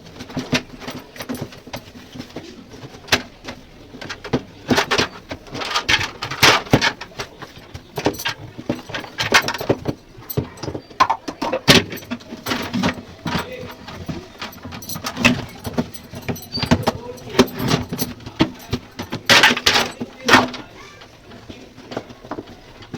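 Removable fridge parts being scrubbed and handled in soapy water, with irregular clattering knocks and rubbing.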